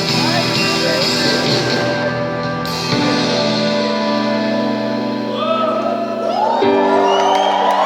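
Live worship band music: long held chords, with a voice singing over them from about five seconds in.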